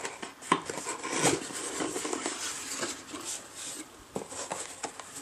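Cardboard product box being opened by hand: the lid and flaps lifted and the box handled, giving soft scrapes, rustles and a few light taps.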